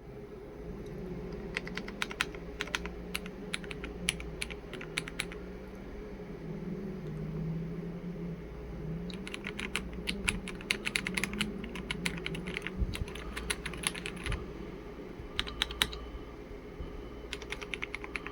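Lemokey X3 mechanical keyboard being typed on, in several bursts of rapid keystrokes with short pauses between them, over a steady low hum.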